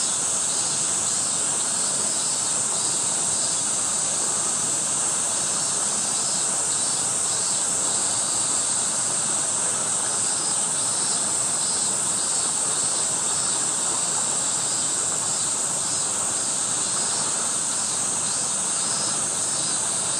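A steady chorus of summer insects: a constant high, hiss-like drone, with a fainter pulsing chirp repeating underneath.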